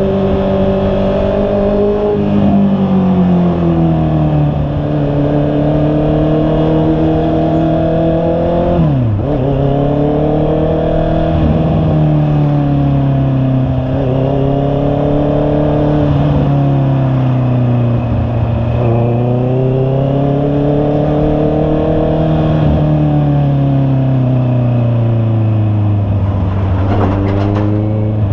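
Honda CB650R's inline-four engine running under way, its pitch climbing with the throttle and falling back several times as the rider shifts or eases off, with a sharp brief dip about nine seconds in.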